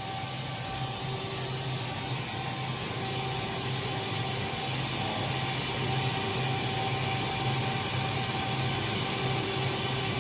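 A 2014 OKK HM-6300S CNC horizontal machining center running under power: a steady hiss over a low hum, with a few faint steady tones. It grows slightly louder through the second half.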